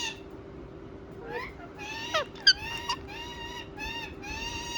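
Indian ringneck parakeet giving a run of short, nasal, harsh calls, starting after a short pause, with one falling note and a sharp loud squawk about halfway through.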